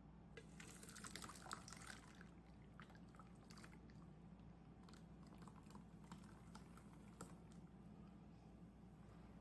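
Near silence, with faint scattered clicks and crackles, densest in the first two seconds, over a low steady hum.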